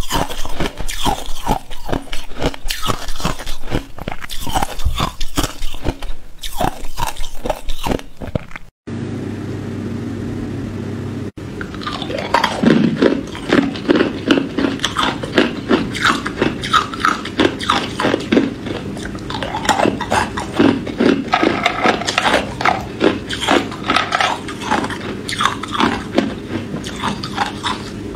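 Close-miked ice eating: slushy ice crunched and chewed in rapid crackles, stopping abruptly about nine seconds in. A steady low hum follows for a few seconds, then hard ice cubes are bitten and crunched in dense, sharp cracks over the same hum.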